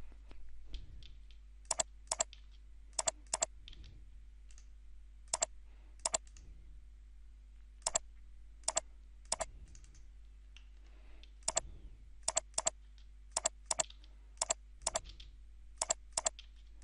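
Computer mouse clicks in pairs, a third of a second or so apart, a dozen or so pairs in all, as pairs of lines are picked one after the other in a CAD program. A faint steady low hum lies underneath.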